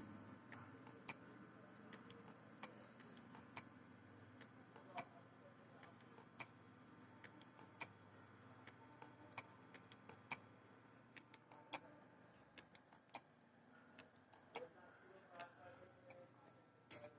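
Toshiba 1 TB hard disk drive clicking over and over at uneven intervals, roughly one click every half second to a second, over a faint steady hum. This repeated clicking is the sign of a faulty drive.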